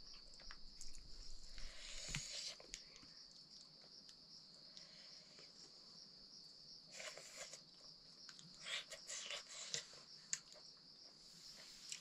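Steady high-pitched chirring of insects, with faint scattered clicks and rustles of eating by hand from a steel plate.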